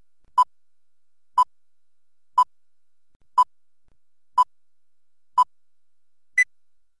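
Film-leader countdown beeps: six short beeps of the same pitch, one each second, then a seventh, higher-pitched beep that ends the count.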